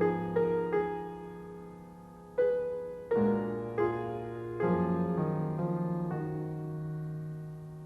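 Slow, quiet solo piano music: single notes and chords struck every second or so, each left to ring and fade.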